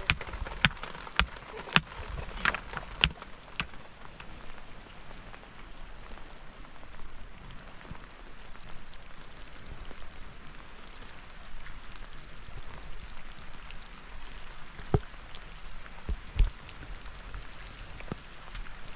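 Steady rain falling. Sharp taps come in a quick run of about seven in the first few seconds, and three more come near the end.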